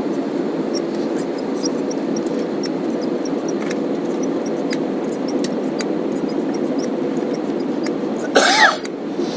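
Steady airliner cabin noise: a low, even rush of engines and airflow with a faint steady hum. A short, loud vocal sound from a person cuts in near the end.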